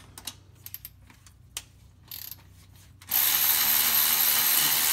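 A few light clicks, then about three seconds in a cordless power driver starts and runs steadily with a dense rattle and a low hum, backing out a transmission oil pan bolt.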